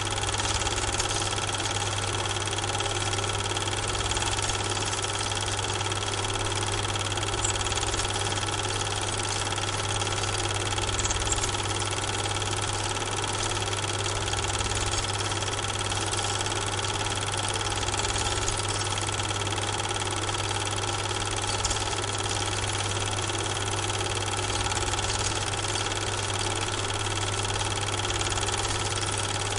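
Steady, unchanging machine hum with a strong low drone and several steady tones above it, running on unchanged across the picture cuts.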